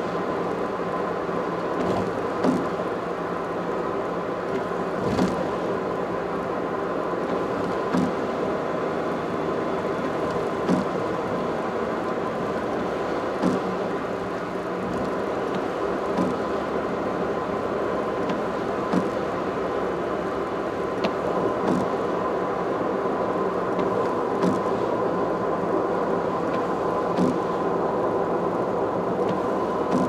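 Steady road and tyre noise from a car travelling on an expressway, with a faint steady hum and a short click repeating evenly about every two and a half to three seconds.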